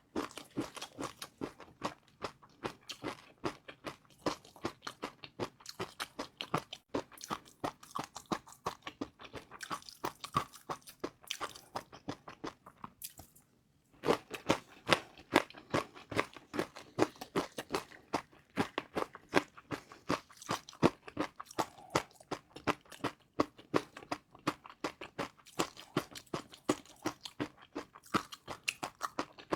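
Close-miked chewing of crispy fried noodles: rapid, dense crackling crunches with each bite. It pauses for about a second roughly halfway through, then resumes louder.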